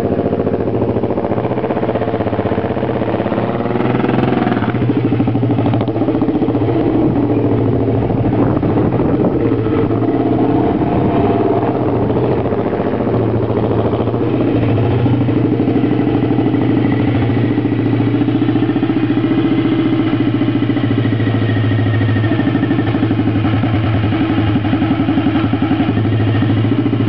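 Neville Evans 500cc single-cylinder overhead-cam racing engine of a Norton Manxman running steadily on a fast idle. The revs rise briefly about four seconds in.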